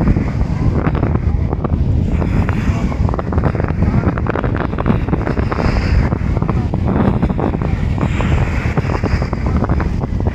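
Wind buffeting the microphone over sea waves washing and breaking in the shallows, a loud, unbroken rush heavy in the low end.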